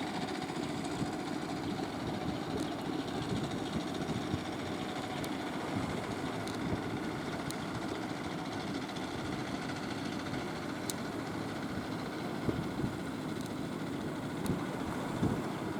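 Fishing boat engine running steadily.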